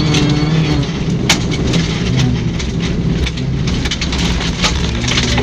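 Rally car running hard on a gravel stage: a steady engine note under a constant clatter of gravel and stones spraying against the car, with one sharp crack about a second in.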